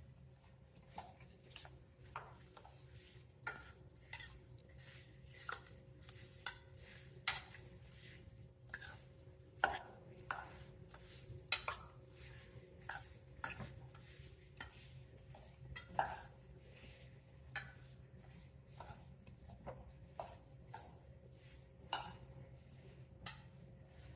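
A utensil stirring diced apples with brown sugar in a bowl, knocking and scraping against the bowl in irregular clicks about once a second.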